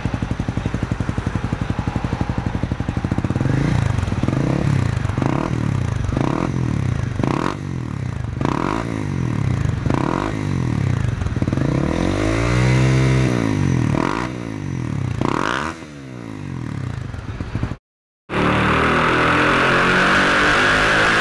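2011 Honda CBR250R's single-cylinder engine through a Two Brothers Racing slip-on exhaust, idling with an even putter, then revved in about a dozen short throttle blips, one held a little longer about two-thirds of the way through. Near the end the engine sound cuts off and music takes over.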